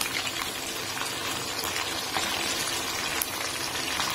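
Sardines shallow-frying in hot oil: a steady sizzle and bubbling. A few light clicks come from the metal tongs as the fish are turned.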